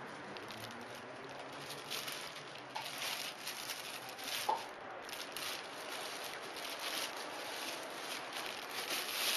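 Clear plastic film being pulled and peeled off a box by hand, crinkling in irregular rustles, with one brief sharper crackle about halfway through.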